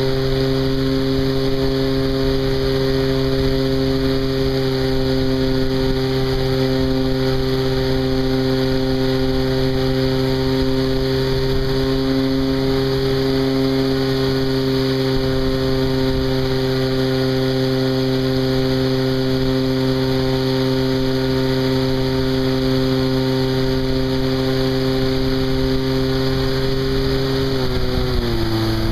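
Engine of a Hangar 9 Cub radio-controlled model plane, heard from a camera mounted on the plane, running at a steady high pitch in flight. Near the end its pitch drops as the engine slows.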